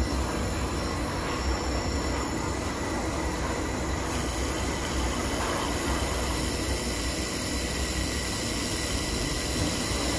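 Steady hum and hiss of an IPG LightWELD handheld fiber laser welder running while it welds a metal tube joint, throwing sparks.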